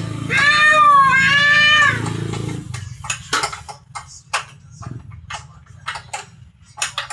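A cat meowing twice in quick succession, each meow a pitched call that rises and falls. A string of irregular sharp clicks and taps follows after about three seconds.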